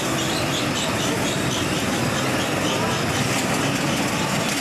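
Small go-kart engines running steadily, karts idling in the pit line while others drive around the track.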